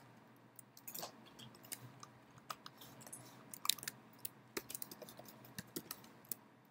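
Faint typing on a computer keyboard: irregular, quick key clicks, one a little louder near the middle.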